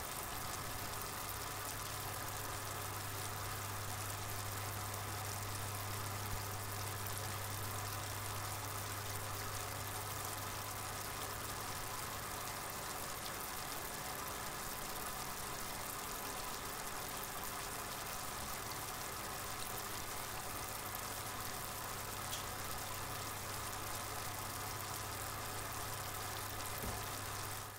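A steady low hum with an even hiss over it, unchanging throughout, fading out at the very end.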